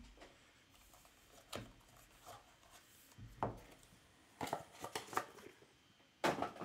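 Hands handling a cardboard trading-card box and its contents on a tabletop: a few scattered knocks, taps and rustles, the loudest knock near the end.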